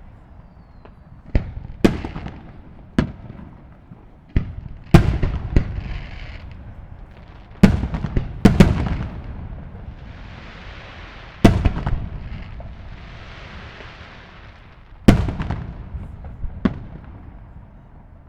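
Aerial firework shells bursting in an irregular series of about a dozen sharp booms. Each boom is followed by a long fading rumble. Between the bursts, around the middle, there are stretches of hissing crackle.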